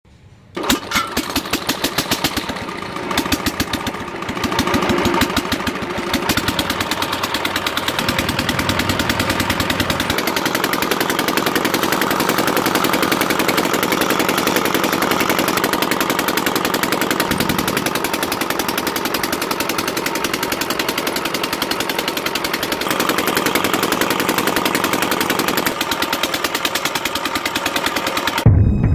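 Small 12 V motor of a homemade model tractor running, driving its roller chains and a shaking sieve tray that clatters in a fast, steady rattle as it sifts pebbles out of rice. It starts about half a second in.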